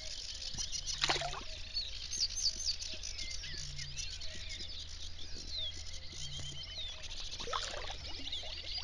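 A dawn chorus of many small birds chirping and trilling, with a sharp splash about a second in as a beaver moves in the water. A short low note repeats about every two and a half seconds underneath.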